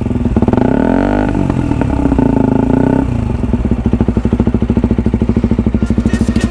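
Motorcycle engine running while riding, its note dipping and climbing again about a second in, then holding steady.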